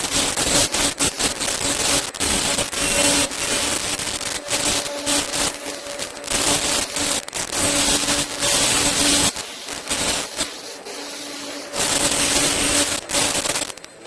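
Dental face mask making machine running, a dense fast clatter of clicks over a hiss, with a faint steady hum that comes and goes. The noise eases off for a couple of seconds past the middle, then picks up again.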